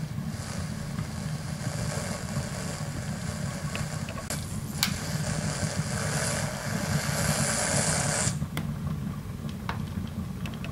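Housmile electric pressure cooker hissing steadily as steam escapes from its lid valve while it heats, the sign that it is almost at pressure; the hiss cuts off suddenly about eight seconds in, over a low steady hum.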